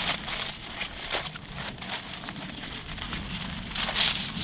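Aluminium foil crinkling and rustling in a run of small crackles, louder about a second in and again near the end.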